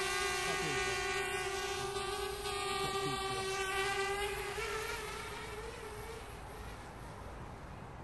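Parrot Bebop quadcopter's brushless motors and propellers hovering with a steady, high buzzing whine. The pitch lifts briefly about halfway through, then the sound fades as the drone flies off into the distance.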